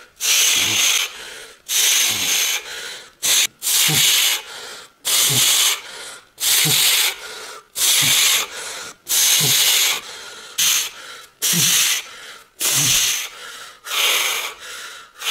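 A man breathing hard and forcefully in a steady rhythm while straining to flex, one breath about every second and a half, each ending in a short low falling grunt.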